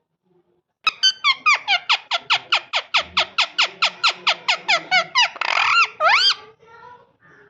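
A parrot calling in a rapid run of short, high, downward-sliding squawks, about six a second, then a harsh screech and a rising-and-falling whistle near the end.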